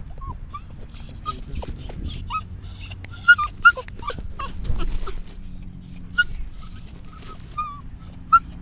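A dog whining in short, high cries repeated throughout, two of them louder a little past three seconds in.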